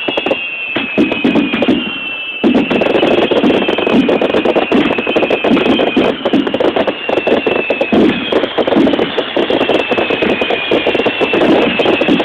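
Starmine fireworks barrage: a dense run of bursting and crackling shells with repeated falling whistles. It is thinner at first, then becomes a packed, continuous barrage from about two and a half seconds in.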